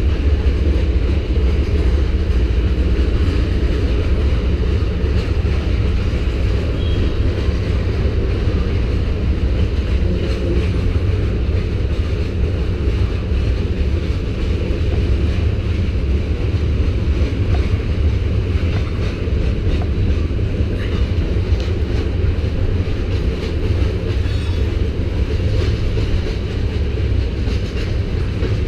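Freight train rolling past, a steady low rumble.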